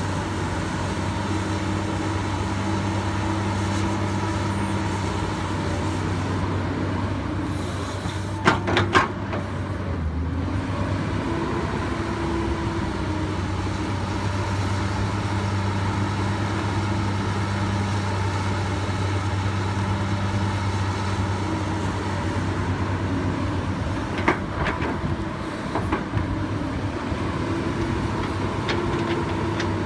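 Komatsu PC200 hydraulic excavator's diesel engine running steadily as it digs, its pitch shifting slightly with the hydraulic work. A few sharp knocks come through, a cluster about eight seconds in and more around twenty-five seconds.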